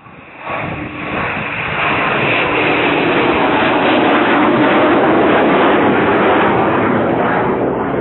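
Jet aircraft flying low past the runway end, its engine noise a loud, even rush that builds within the first second and then holds steady.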